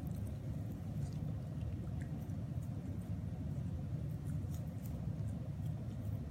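Corgi puppy licking and mouthing a strawberry, heard as faint, scattered wet clicks and smacks. Under them runs a steady low rumble.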